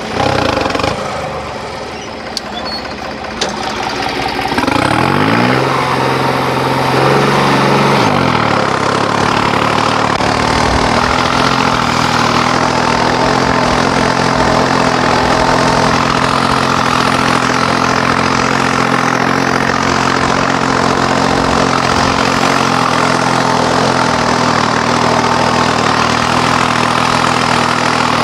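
New Holland 5620 tractor's diesel engine working under load in fourth medium gear, pulling a tillage implement through the soil, its modified fuel pump letting it hold its revs. The engine note climbs and dips between about five and eight seconds in, then stays steady.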